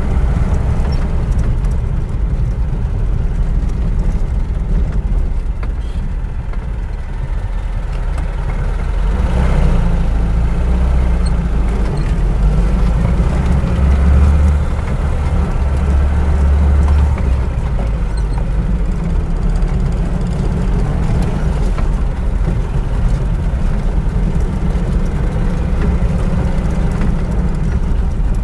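Lada Niva VAZ-2121 four-cylinder petrol engine idling with a steady deep running sound. It swells a little louder for several seconds midway.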